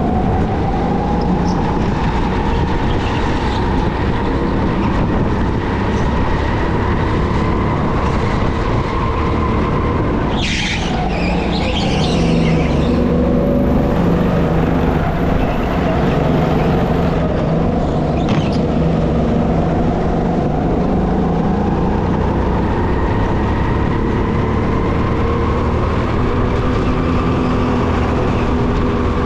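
A Sodi SR5 200cc rental kart's engine running hard through a lap, its pitch climbing and falling as it accelerates and slows for corners. A brief harsh noise comes about ten seconds in, and a smaller one around eighteen seconds.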